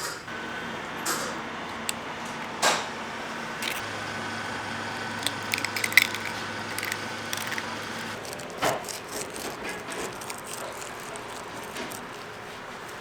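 Clinks and knocks of metal cooking work at a bungeoppang stall, with a steady hum that stops about eight seconds in.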